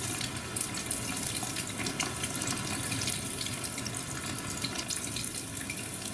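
Chicken karaage deep-frying in oil at about 180 °C on its second fry: a steady, dense sizzle with a fine crackle of small pops from the vigorously bubbling oil.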